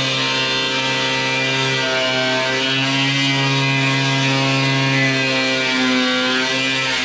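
Angle grinder running against the steel lower quarter panel of a 1973 Plymouth Duster: a steady motor whine over a gritty hiss, its pitch wavering slightly as the disc bears on the metal.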